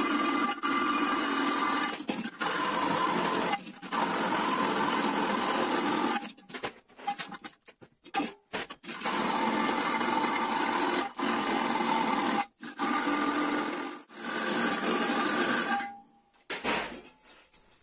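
Cordless drill boring through the enamelled steel bottom of a pot, running in long stretches of a few seconds with short stops between them, and a few brief starts and stops about halfway through.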